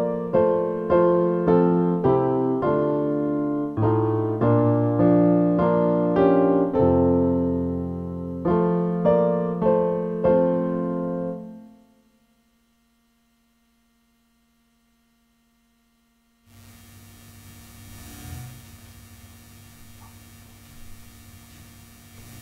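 Electronic keyboard playing slow piano-voiced chords, struck about once a second. The last chord dies away about eleven seconds in. After a few seconds of near silence, a steady low hum and faint room noise come in.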